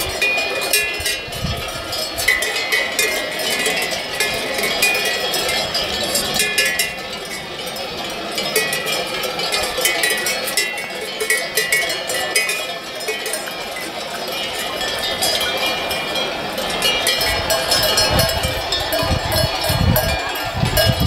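Many livestock bells clanking and ringing without pause, from a large flock of sheep on the move and grazing cows, with sheep bleating now and then.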